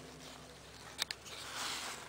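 Rustling and handling noise close to the microphone as hands work at the wiring, with two quick sharp clicks about a second in.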